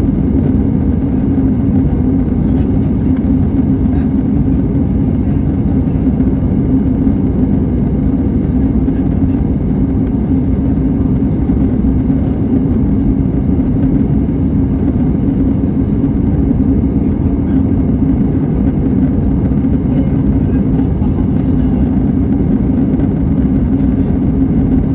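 Steady cabin noise of an Airbus A320 in flight: a continuous drone of the jet engines and rushing airflow, with a steady low hum, heard from inside the cabin.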